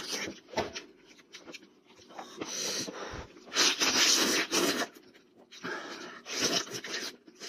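A person slurping and sucking meat off a cooked goat head and chewing, in several bursts of noisy mouth sounds, the longest and loudest about halfway through.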